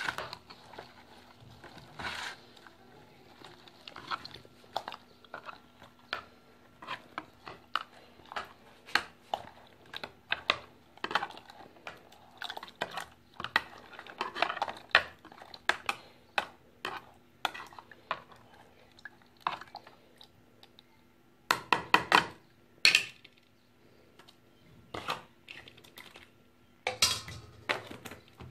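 A spoon stirring spice-topped pickle water in a plastic jar, knocking and scraping against the jar's sides in irregular clicks. A louder flurry of knocks comes about three-quarters of the way in, and another near the end.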